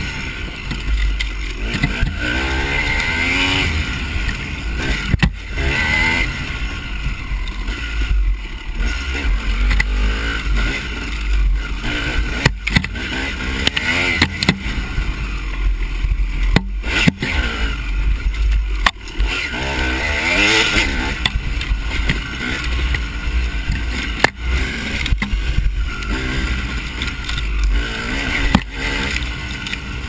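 Off-road dirt bike engine revving up and down as it is ridden hard along a rough trail, over heavy wind rumble on the microphone and sharp knocks from the bumps.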